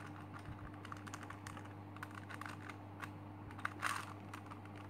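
Plastic clicking and clacking of a Super Square One twisty puzzle being turned by hand, its layers clicking in quick, irregular ticks, with a louder clack about four seconds in. A steady low hum sits underneath.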